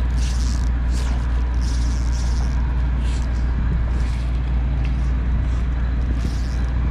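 Wind buffeting the microphone over open water: a steady, loud rumble with hiss, and a few brief swishes near the start, around two seconds in and near the end.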